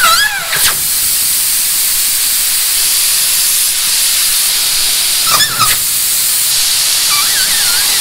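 Air rushing out of a semi-trailer tire through the valve stem with the valve core pulled, deflating the tire: a loud, steady hiss that starts about half a second in.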